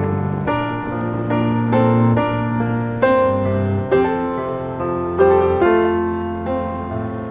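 Background music: a piano melody over sustained low bass notes, notes struck about every half second.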